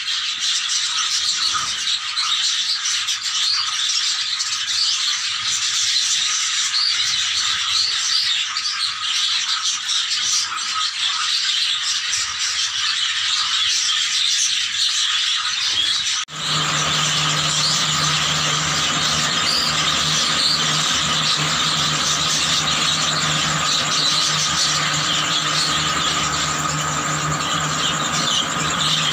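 Many caged budgerigars chattering and warbling nonstop in high, squeaky calls. About halfway through a steady low hum joins in.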